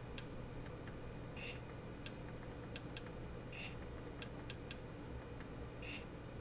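Scattered faint clicks of buttons being pressed to move through on-screen menus, with three short soft swishes between them, over a low steady hum.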